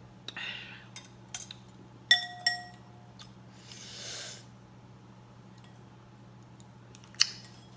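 Tableware sounds while eating: a utensil clinks twice against a bowl, each strike leaving a short ring, among a few lighter taps and clicks. A short airy sound comes in the middle.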